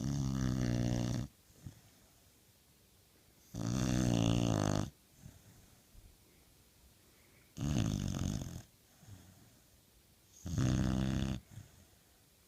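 Pit bull snoring: four loud, buzzing snores, each about a second long, coming every three to four seconds, with quiet gaps between.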